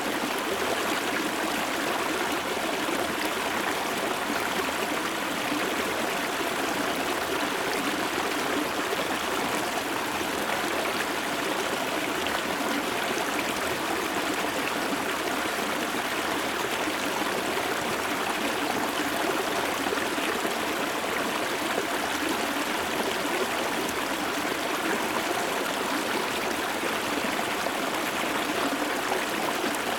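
Water of a low, dry-season river stream flowing about half a metre away, a steady trickling rush with no breaks or changes.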